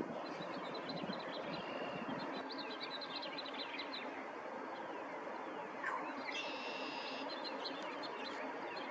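Small birds chirping and singing over a steady background hiss: many quick chirps, a held note about a second and a half in, and a louder buzzy trill lasting about a second, around six seconds in.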